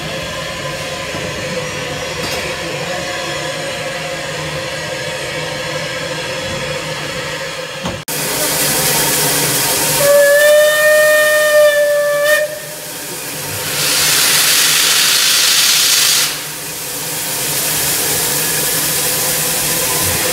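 Steam locomotive letting off steam with a steady hiss and hum. About eight seconds in, a much louder steam hiss starts suddenly, and the whistle sounds for about two seconds at a steady pitch. Two more loud surges of steam hiss follow.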